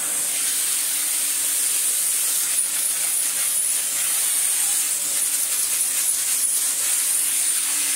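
Electrolux Z350 Electronic cylinder vacuum cleaner running below full power, a steady high-pitched hiss of air, as its flat floor head is pushed back and forth over carpet.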